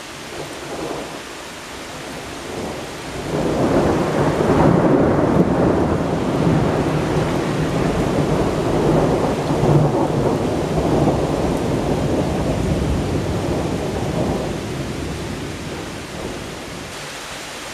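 A long roll of thunder over steady rain: it swells about three seconds in, rumbles loudly for some ten seconds, then dies away near the end.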